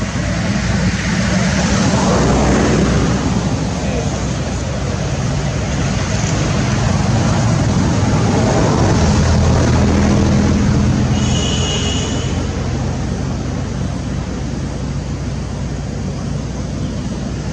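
Road traffic: vehicle engines running past, swelling louder twice. A brief high-pitched tone is heard about two-thirds of the way through.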